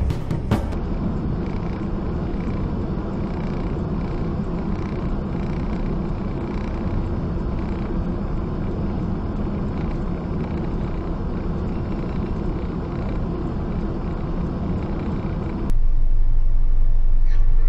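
Steady engine and road noise of traffic as picked up by a car's dash camera, with no distinct crash or impact. Near the end it changes abruptly to a louder, steady low hum.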